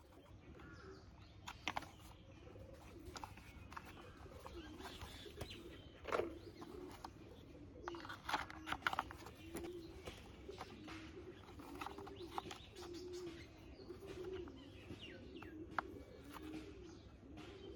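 Pigeons cooing over and over in the background, a low wavering call repeating about once a second. Over it come sharp clicks and knocks of plastic toy-car parts and a screwdriver being handled, loudest about six seconds in and again around eight to nine seconds.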